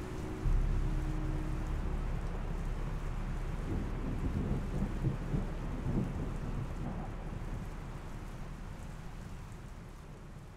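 Thunderstorm sound: steady rain hiss with a low thunder rumble that breaks in about half a second in and rolls on with crackles a few seconds later, all fading out near the end.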